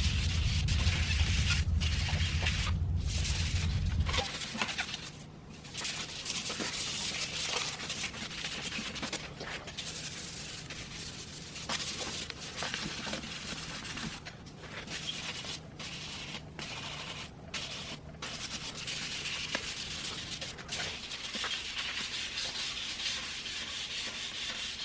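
320-grit sandpaper rubbed by hand over body filler on an aluminium wheel, a hissing scratch in repeated strokes with short pauses between them. A loud low hum runs underneath for the first four seconds, then stops.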